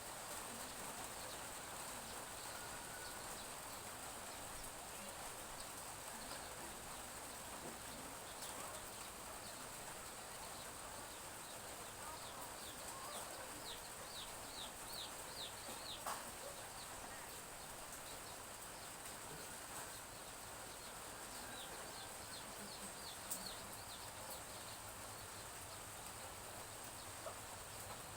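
Light drizzle falling steadily, with chicks peeping in quick runs of short, falling high notes, once midway and again near the end. A few sharp ticks stand out, the loudest about halfway through.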